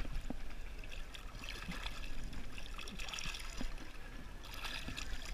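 River water lapping and trickling right against a camera riding at the surface, with small splashes.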